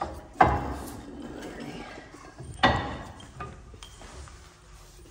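Two sharp metallic clanks with a short ring, about two seconds apart, as a disc brake caliper is knocked into place over the rotor on the spindle, with quieter handling noise between.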